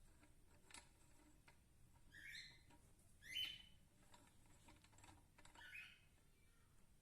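Faint bird chirps: three short calls a second or two apart, with a few light clicks in between.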